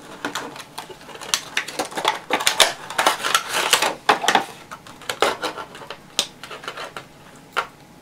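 Stiff clear plastic blister packaging crackling and rustling as it is pried open by hand, thickest about halfway through, then a few separate sharp clicks.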